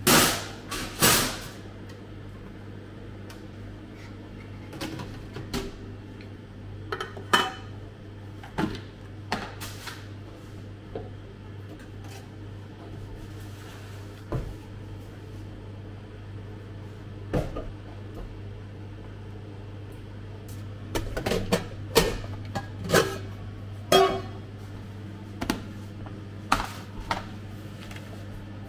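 Shop kitchen prep clatter: irregular sharp knocks and clinks of pans, trays and utensils being handled, bunched in short flurries, over a steady low electrical hum from kitchen equipment.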